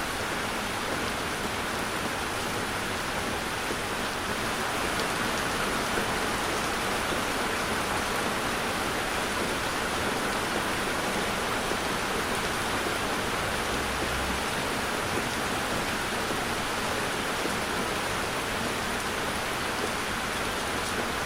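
Heavy rain beating on a moving car, a steady, even hiss with no break.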